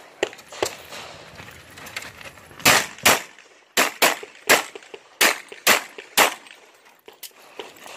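Handgun shots fired in quick pairs by a competitor shooting a practical-shooting stage. A few faint shots come early, then eight loud, sharp shots follow in pairs over about three and a half seconds, and a couple of fainter ones come near the end.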